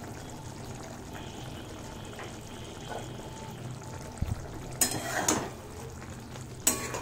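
Curry simmering in an aluminium kadai with a steady low bubbling, broken by sharp metal clatters and scrapes of a spatula and pan lid about four to five seconds in and once more near the end.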